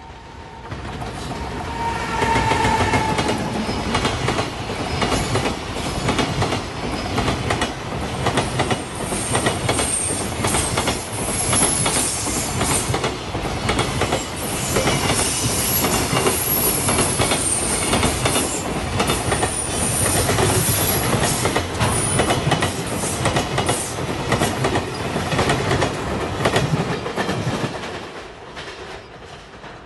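Long container freight train hauled by an EF210 electric locomotive passing close by, its wheels clattering steadily over the rail joints with a high wheel squeal at times. The sound swells in the first couple of seconds and fades near the end as the last wagons go by.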